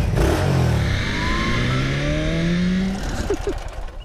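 1969 Yamaha DT-1's 246 cc two-stroke single engine revving as the motorcycle accelerates, its pitch rising steadily for about two seconds before it drops away near the end.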